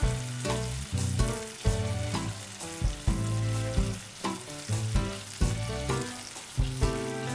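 Chicken breast pieces sizzling as they fry in oil in a nonstick skillet, with background music of steady notes and a bass line playing under the sizzle.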